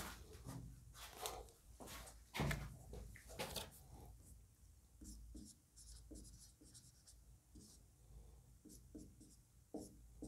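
Marker pen writing on a whiteboard in many short, faint strokes from about five seconds in. Before that, a few louder rubs and knocks, the loudest about two and a half seconds in.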